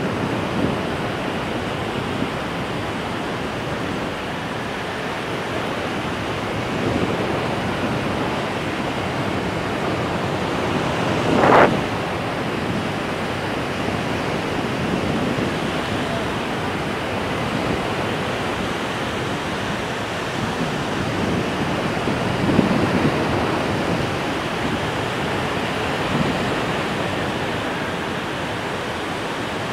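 Steady rushing noise of wind buffeting an airborne kite camera's microphone, mixed with the wash of breaking surf below. A brief louder swish comes about halfway through.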